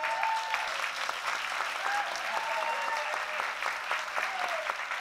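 Theatre audience applauding, with voices whooping and cheering over the dense clapping.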